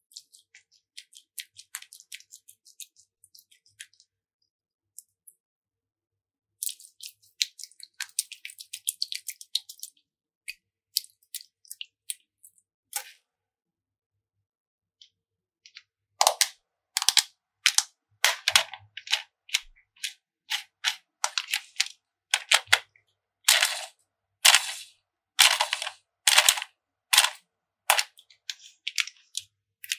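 Slime being pressed and pulled by hand, giving sharp sticky pops and clicks in uneven runs. They are faint and sparse at first, come thick for a few seconds about a quarter of the way in, stop for a moment, then turn louder and fuller from just past halfway.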